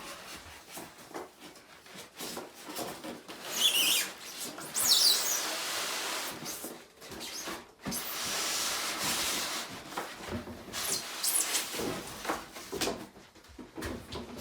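A cardboard box and styrofoam packing are being pulled apart by hand: irregular rustling, scraping and clicks, with a couple of high squeaks about four to five seconds in, when the foam rubs.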